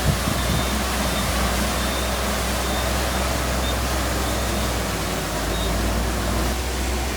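Heavy earthmoving machinery running steadily: a low diesel engine rumble under a broad hiss, with a brief knock just at the start.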